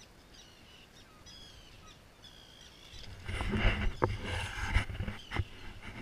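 Faint, high, wavering bird calls in the first half. About three seconds in, a couple of seconds of rushing, rumbling noise with a few sharp knocks takes over and is the loudest sound.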